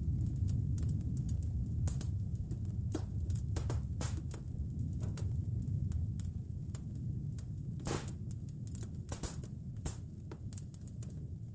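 Wood fire crackling in a fireplace: irregular sharp pops and snaps, the loudest about eight and nine seconds in, over a low steady rumble.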